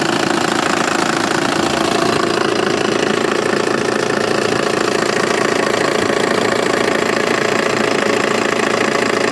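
Cummins 6BT inline-six diesel engine running steadily in an old Atlas 1702 excavator.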